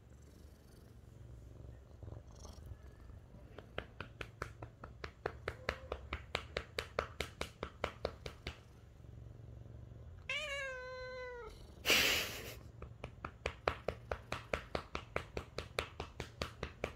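Lynx point Siamese cat purring steadily while a hand pats its rump, about three to four light pats a second. When the patting stops the cat complains with one drawn-out meow about ten seconds in, followed by a short loud burst of noise before the pats start again.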